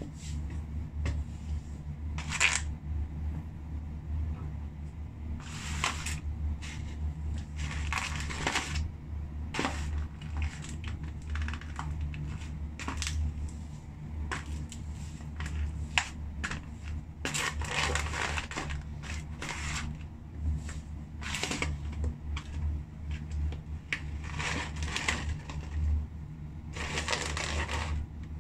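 A shoe sole crushing French fries and McDonald's paperboard fry cartons on a tile floor: irregular crinkling and crackling with sharper cracks now and then, over a steady low hum.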